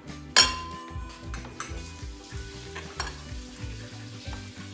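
A sharp clink of a utensil on a dish about half a second in, ringing briefly, then a few lighter clicks. Under it run a faint sizzling hiss and low, repetitive background music.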